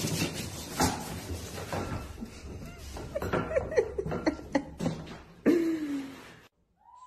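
A person laughing in short broken bursts over a noisy background, then cut off suddenly near the end.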